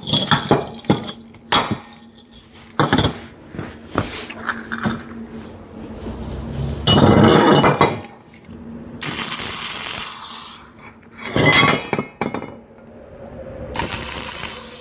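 Steel parts and tools clinking and knocking on metal in a welding shop, with a few short stretches of steady hiss in between.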